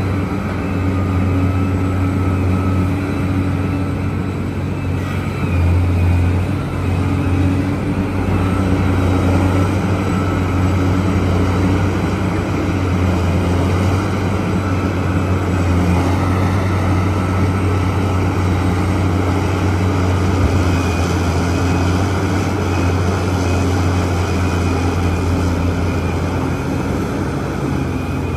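Engine of a large Liebherr mining excavator running steadily under load, a deep drone that swells briefly about six seconds in.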